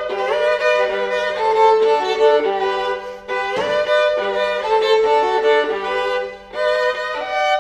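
Solo viola, bowed, playing a melody over a held low drone note. The playing thins out briefly twice.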